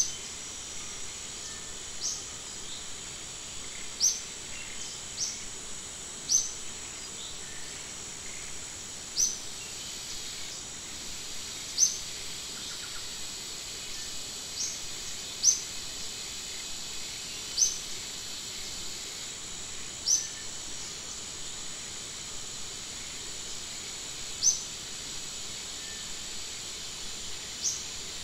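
A steady high-pitched insect drone, over which a bird gives about a dozen short rising chirps at uneven intervals of one to four seconds.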